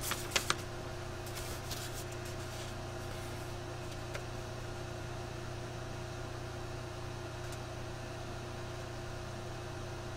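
Steady low hum of room tone, with a few light clicks in the first second and a couple of fainter ones soon after.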